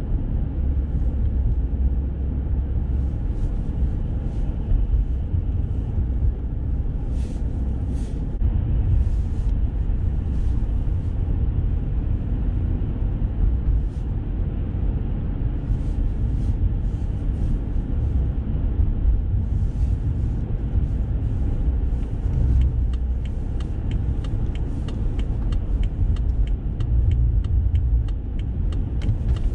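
Car driving on city streets, heard from inside the cabin: a steady low road and engine rumble with scattered faint clicks. In the last seven seconds or so a quick, regular ticking joins in.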